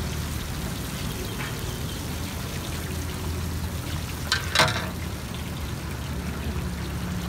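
Masala-coated fish pieces deep-frying in a large karahi of hot oil, with a steady bubbling sizzle over a low hum. This is the first, half-fry stage of a double fry. A short, sharper sound breaks in about four and a half seconds in.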